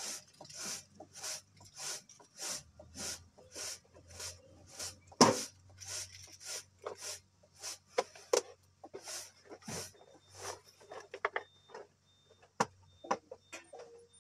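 Grain swishing and rattling in a round bamboo winnowing tray tossed in a steady rhythm, about three strokes every two seconds, with one sharp knock about five seconds in. From about eight seconds in the strokes turn irregular, with small clicks of grain.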